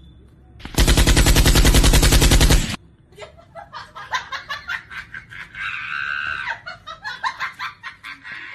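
A loud burst of rapid automatic gunfire, a machine-gun sound effect, rattles for about two seconds and cuts off suddenly. It is followed by a run of quick, choppy high-pitched chattering sounds.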